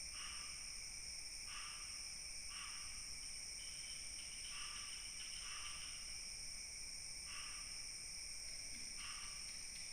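A chorus of crickets and other insects: two steady high-pitched trills, with shorter, lower chirps that repeat irregularly about once a second.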